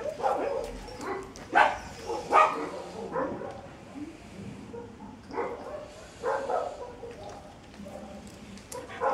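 A dog whining in a few short, pitched whimpers, the loudest about a second and a half and two and a half seconds in, with more a few seconds later.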